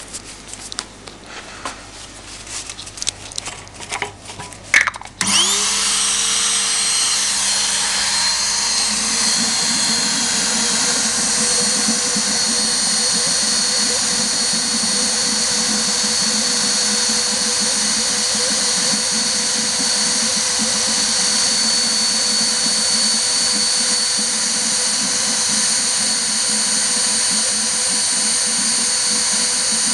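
Volkodav cold fog generator switched on about five seconds in: its motor spins up with a short rising whine and then runs steadily and loudly with a high whine, after a few seconds of handling clicks and rustling.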